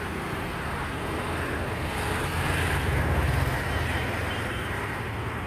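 Road traffic going by: a vehicle's low engine rumble that grows louder in the middle and eases off near the end, over a steady traffic hum.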